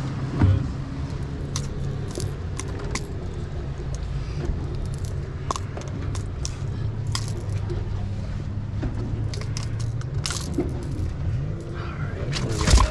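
Light metallic clicks and rattles of a crankbait's treble hooks and lure as they are worked loose from a fish's mouth, over a steady low hum, with a louder cluster of knocks near the end.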